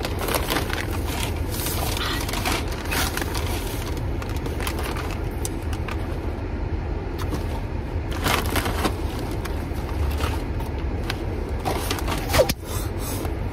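Car air-conditioning fan blowing over the idling engine, heard inside the cabin as a steady rush with a low rumble beneath it. A few short clicks and rustles come and go over it.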